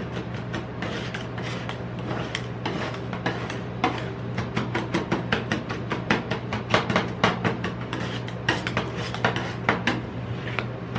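Metal spatulas chopping and scraping on a rolled ice cream cold plate, working Lay's potato chips into the cream, with rapid irregular taps and scrapes over a steady low hum.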